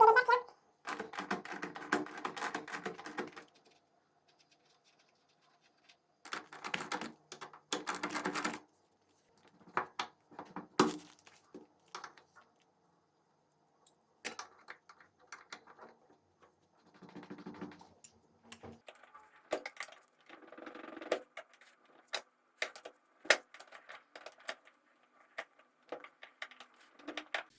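Metal hand tools working the bolts of a bushing puller on a GY6 scooter's engine mount: several runs of rapid metallic clicking, like a wrench being worked, and scattered single clinks of sockets and tools, with short quiet pauses between.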